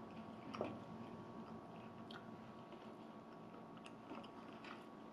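Quiet chewing of a mouthful of plant-based burger, with a few faint, short wet mouth clicks spread through, over a faint steady hum.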